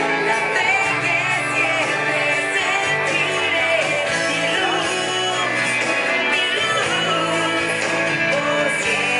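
Loud song with a sung lead vocal over a full instrumental backing, running steadily without a break.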